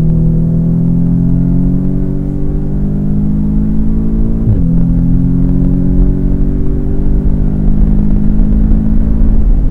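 Audi S3's turbocharged 2.0-litre four-cylinder accelerating hard. The pitch climbs steadily, falls sharply at an upshift about halfway through, then climbs again, heard from inside the cabin.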